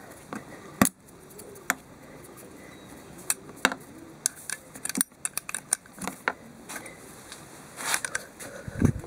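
Scattered small metallic clicks and knocks of a bent screwdriver levering a rubber intake boot back onto a carburettor, with one sharp click about a second in and a dull thump near the end.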